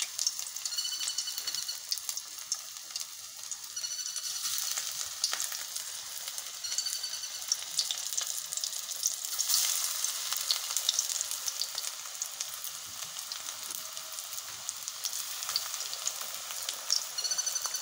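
Banana-flower and gram-flour chop mixture deep-frying in hot oil in a metal wok: a steady crackling sizzle full of small pops.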